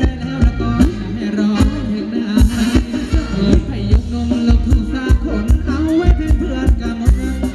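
Live band playing Thai ramwong dance music over a PA, with a steady drum beat under a wavering melody.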